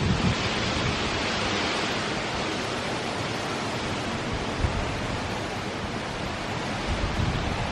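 Steady rush of heavy hurricane rain and wind, a little louder in the first couple of seconds.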